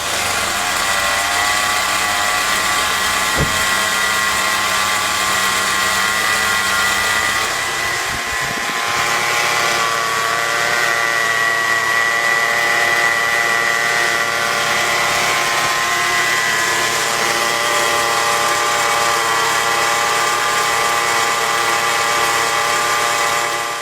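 Car engine running just after starting, with a loud, steady high-pitched whine over it: the sound of a worn, noisy bearing due for replacement.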